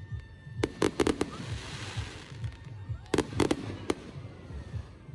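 Fireworks going off in the open air: sharp cracking reports in quick clusters, a few just under a second in and a rapid run just after three seconds, over a low rumble.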